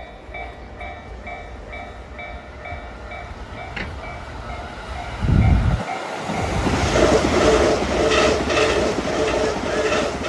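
Japanese level-crossing bell dinging steadily, about three times a second. About five seconds in, a JR Keihin-Tohoku line electric commuter train arrives with a loud low rush and runs past, its wheels rumbling and clacking over the joints.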